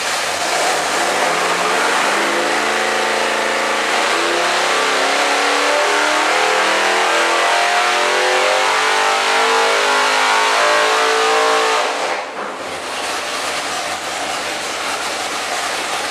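Nelson Racing Engines 474-cubic-inch all-aluminum naturally aspirated LS V8 making a full-load sweep on an engine dynamometer, its note rising steadily from about 1,100 to over 6,200 rpm. About twelve seconds in the pull ends: the note drops back and the engine runs on quieter.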